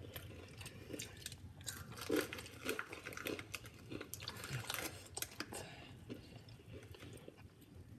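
Someone chewing and biting into a chicken wing close to the microphone, with irregular small crunches and mouth clicks.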